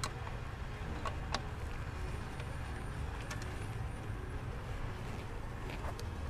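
A few sharp metallic clicks and taps from hand tools and parts being handled while a blower valve is removed from an engine bay. Under them runs a steady low rumble.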